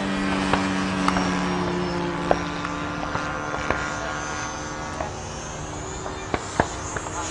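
Electric motor and propeller of a radio-controlled Art-Tech Yak 54 3D model airplane, a steady buzzing drone as it flies past, a little fainter in the second half, with a few sharp clicks.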